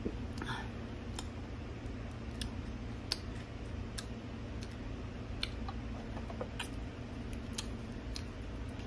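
A person drinking soda from a plastic bottle and tasting it: a short soft sound about half a second in, then scattered faint clicks over a steady low hum.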